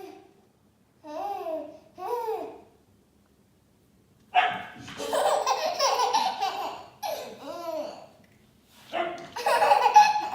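Hearty laughter in two long bouts. Short rising-and-falling cries come before and between the bouts.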